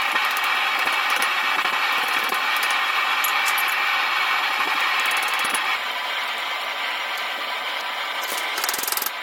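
Propane forge burner running with a steady roar, dropping somewhat in level about six seconds in, with a few faint metallic clinks.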